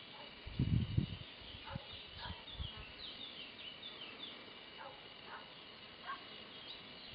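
Garden ambience: small birds chirping in short, quick falling notes over a steady high-pitched drone. A few low thumps about half a second to a second in are the loudest sound.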